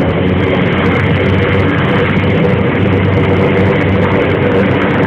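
Helicopter engine and rotors running, a loud steady drone with an even low pitch that does not change.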